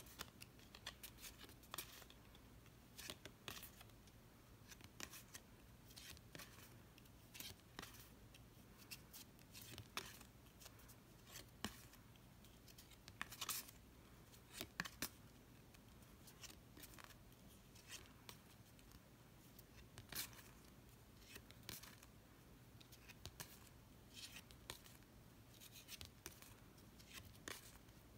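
Faint snaps and rustles of Monopoly game cards being flipped through one at a time, irregular, a click every second or so, over a steady low hum.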